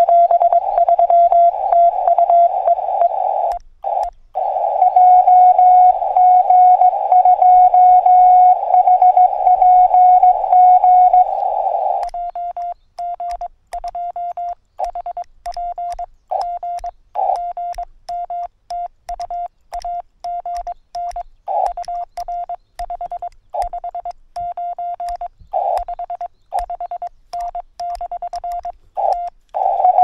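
Morse code (CW) from a Yaesu FT-818ND transceiver's speaker: a single tone of about 700 Hz over hiss of a narrow filter. For the first dozen seconds it is loud and almost unbroken, and after that it turns into quieter keyed dits and dahs.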